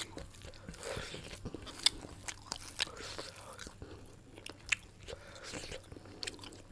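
A person chewing and eating chicken curry with rice, with irregular wet mouth clicks and smacks.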